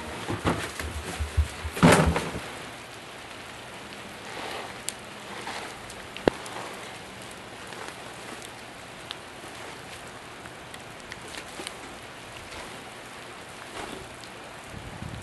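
Plastic garbage bag rustling and crinkling as it is pulled out of a bin, loudest about two seconds in. Then a steady hiss of rain outdoors, with a few isolated light clicks.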